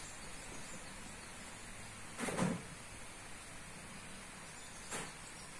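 Quiet room hiss with one soft knock about two seconds in and a small click near the end, handling noise from crocheting with a hook and yarn.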